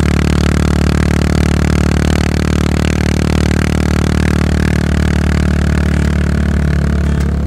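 Yamaha SR400's air-cooled single-cylinder engine through a slip-on cone muffler, running loud and steady at an even engine speed while cruising.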